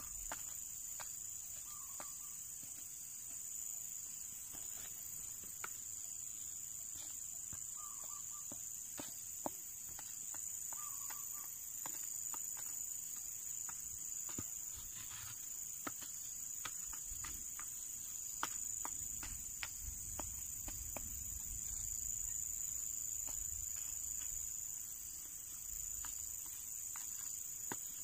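Steady high-pitched drone of an insect chorus, with scattered short clicks and scrapes of a wooden stick pushing gravelly soil over seed holes.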